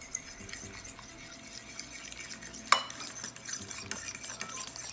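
Fork whisking beaten eggs in a ceramic bowl: a fast run of scraping and tapping against the bowl, with one louder clink of the fork on the bowl a little under three seconds in.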